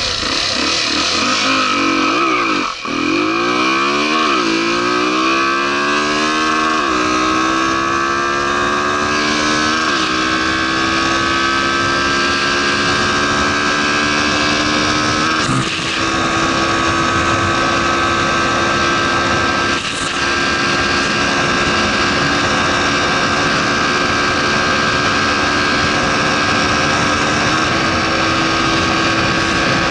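Honda Tornado motorcycle's single-cylinder four-stroke engine, fitted with a 290 cc big-bore kit and intermediate camshafts, run at full throttle. The revs dip briefly about three seconds in, climb for several seconds, then hold a high, steady note, with two short dips around the middle.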